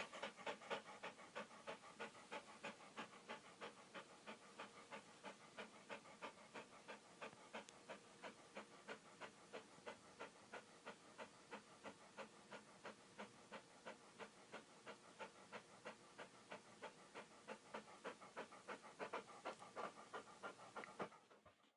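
Rottweiler panting in a quick, steady rhythm of about three to four breaths a second, a little louder near the start and again near the end.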